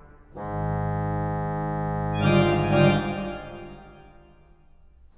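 Pipe organ playing a held chord that starts about half a second in, swells fuller and louder about two seconds in, then dies away near the end.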